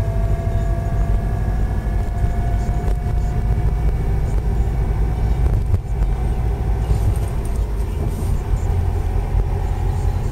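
Subaru Impreza WRX driving, with heavy road and drivetrain rumble and a whine from worn centre differential bearings in its 5-speed gearbox. The whine rises slightly in pitch as the car gathers speed, fades about halfway and returns faintly near the end.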